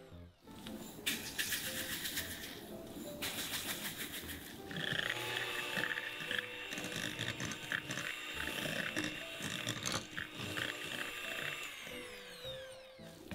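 Electric hand mixer running, its wire beaters creaming butter and sugar in a glass bowl, starting about a second in. Light background music plays along.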